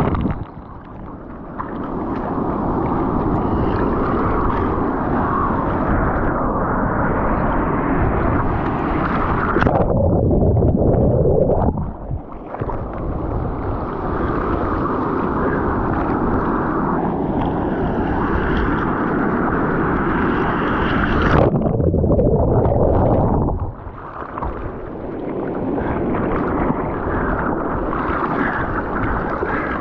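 Muffled rushing of sea water and wind over the microphone in the surf, churning steadily and dropping away suddenly a few times.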